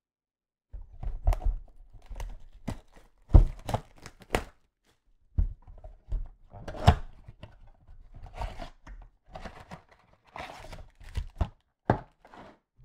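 Trading-card blaster box and its wrapped packs being torn open and handled: tearing and crinkling rustles broken by several sharp knocks. It starts after a brief silence.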